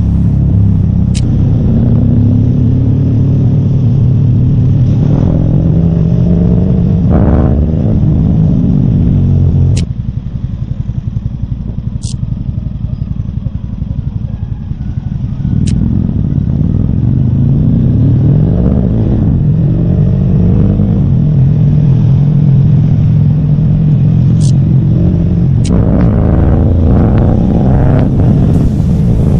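A road vehicle's engine running close and loud, its pitch rising and falling as it revs. The engine sound drops away for about five seconds in the middle, then picks up again, with a few faint sharp ticks.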